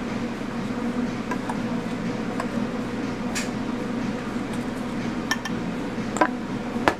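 Rubber spatula scraping cake batter out of a stainless steel mixing bowl into a glass coffee mug, with a few sharp clinks of metal on glass, the loudest two near the end, over a steady background hum.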